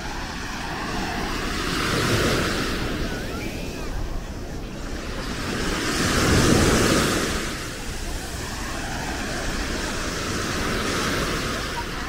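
Small sea waves breaking and washing up the sand at the shoreline, a steady wash of surf that swells twice, loudest about halfway through.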